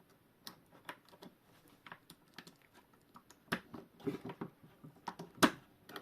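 Irregular light clicks and taps of a Junghans wall clock's mainspring and movement parts being handled, as the coiled spring is worked onto its hook by hand; one sharper click about five and a half seconds in.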